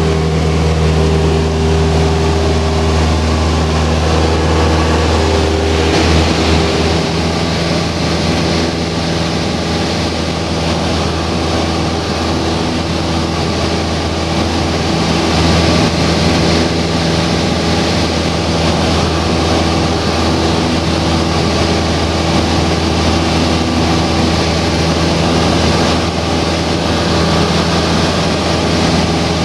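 Cessna 172 Skyhawk's four-cylinder piston engine and propeller droning steadily in cruise, heard from inside the cabin, with a slight change in tone about six seconds in.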